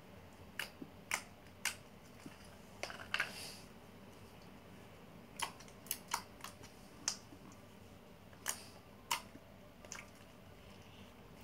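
Foam slime being squeezed and poked by hand, giving irregular sharp pops and crackles, one or two every second.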